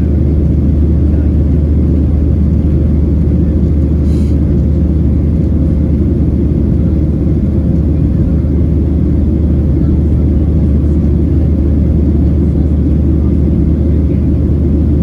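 Boeing 737-700 cabin noise: its CFM56 jet engines and the airflow give a loud, steady, deep rumble with a faint held tone above it. There is a single faint click about four seconds in.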